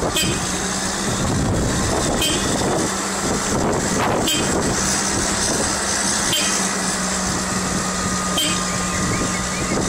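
Huddig 1260B backhoe loader's diesel engine running at a steady, even speed as the machine drives slowly on pavement.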